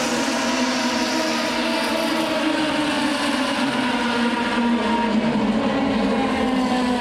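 Several open-wheel single-seater race cars running at speed on the circuit. Their engine notes blend into a dense, steady drone, with pitches drifting slightly as cars pass.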